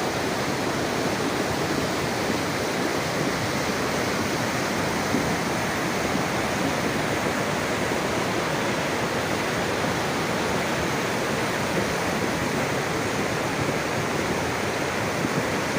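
Floodwater rushing in a torrent: a steady, unbroken wash of water noise.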